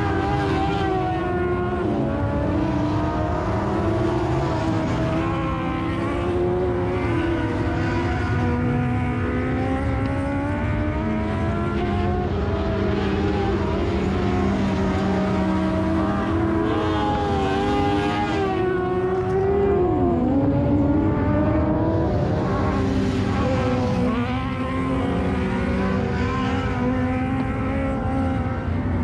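Several dwarf race cars' motorcycle engines running at once, their pitch rising and falling as the drivers get on and off the throttle.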